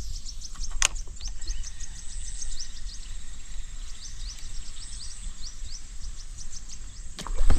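Outdoor forest ambience: rapid, repeated short high chirps from wildlife, over a steady low rumble. A single sharp click comes about a second in.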